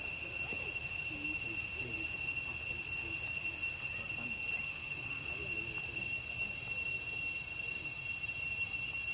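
Outdoor ambience: a steady high-pitched drone that does not change, over a low rumble, with faint distant voices now and then.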